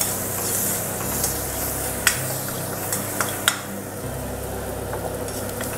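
Onion and spice masala sizzling in oil in a cast-iron kadai while a metal spoon stirs it, with a few sharp clicks of the spoon against the pan. The oil has just been topped up and the masala is being sautéed.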